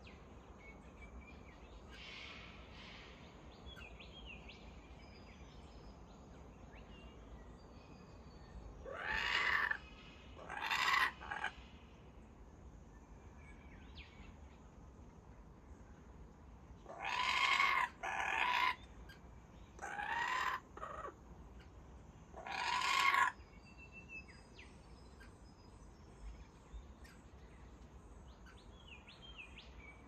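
Laughing kookaburras giving short, loud, rising calls: two about nine seconds in and four more in a later bout. Faint small-bird chirps and a steady high insect drone run underneath.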